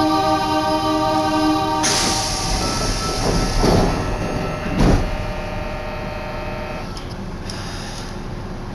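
Background music until about two seconds in, then the running sound of a linear-motor subway train heard from inside the car. There is a short loud knock about five seconds in, after which the train sound settles to a steady lower rumble.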